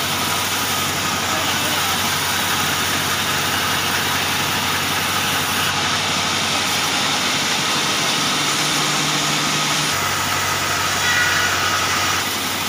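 Sawmill saw bench running with a steady mechanical drone as a timber beam is fed through it.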